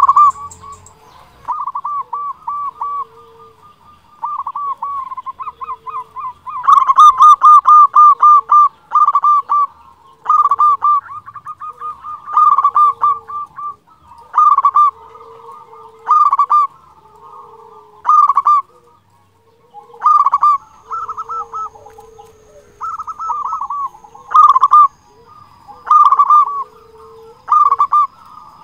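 Local Indonesian zebra dove (perkutut) cooing: repeated short phrases of rapid, pulsing notes, one phrase every second or two, loudest about a third of the way in.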